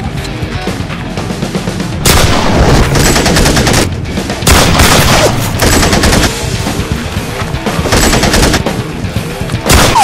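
Rapid automatic gunfire sound effects in several long bursts, starting about two seconds in, over background music.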